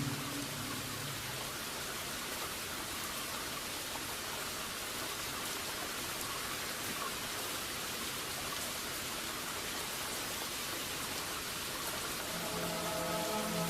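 Steady rain falling, an even hiss with no pattern. Soft held music tones come in about twelve seconds in.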